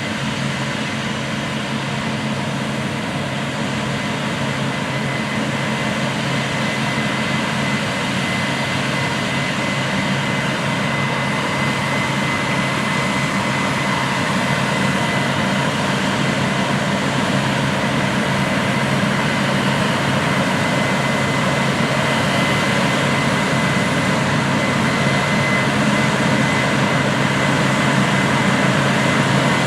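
Large diesel farm machinery running steadily under load: a deep engine drone with a thin steady high whine over it, growing gradually louder.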